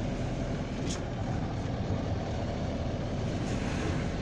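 Steady rumble and hiss of a vehicle on the move, engine and road noise with no changes in pitch.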